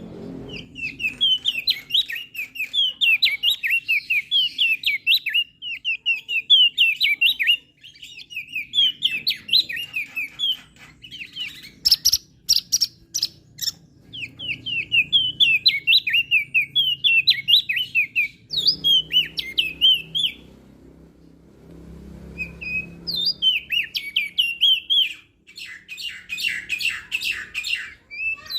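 Opior jambul (crested white-eye) singing: fast runs of short, sweet chirping notes in long phrases separated by brief pauses. About halfway through, a quick series of sharp clicks sounds with the song.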